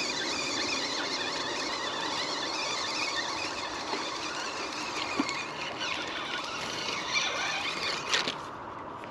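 Spinning reel being cranked steadily as a small fish is reeled in, giving a high, wavering whine. It stops suddenly near the end, just after a sharp tick.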